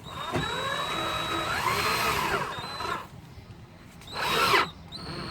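Power drill-driver driving a self-tapping screw into the screen door's plastic frame: one run of about three seconds with the motor's pitch rising, then a short second burst about four seconds in. The screw is driven only lightly, since the frame is plastic.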